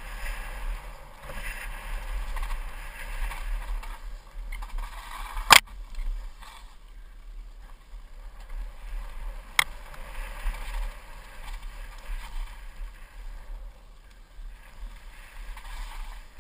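Muffled wind and trail rumble of a mountain bike riding fast down dirt singletrack, picked up by a GoPro camera. There are two sharp knocks, about four seconds apart, the first the loudest.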